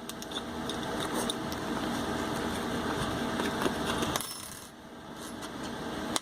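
Small metal parts clinking with scattered sharp clicks amid rustling, as a packaged Anderson ambidextrous AR-15 safety is unpacked; the handling eases off about two thirds of the way through.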